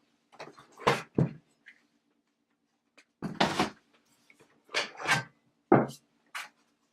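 Handling noise from unboxing an aluminium laptop stand and its packaging: a series of short rustles and knocks about a second in, around the middle, and several more toward the end.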